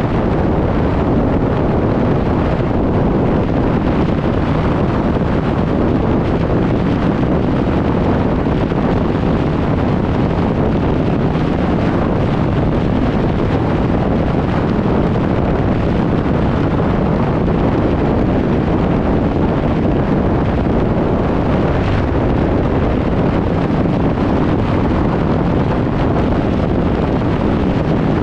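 Wind buffeting the microphone of a camera mounted on the front bumper of a fire rescue truck driving at highway speed, mixed with tyre and road noise. It is a steady, loud rush.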